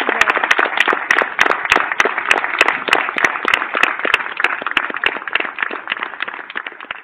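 Audience applauding: dense, many-handed clapping that gradually dies away over the last few seconds.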